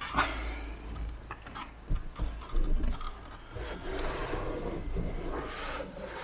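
Hands rubbing and smoothing a stretch rib-knit fabric cover over a foam cushion: irregular rustling and rubbing of fabric, with a few soft knocks.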